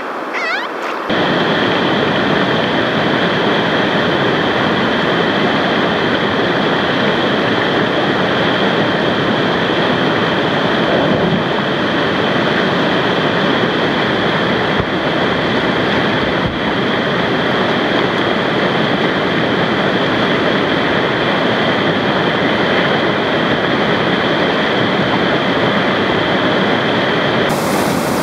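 Loud, steady rush of whitewater pouring over a rocky river drop and rapids, heard close up, cutting in sharply about a second in.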